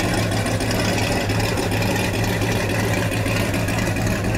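A car engine idling steadily with a low, even hum.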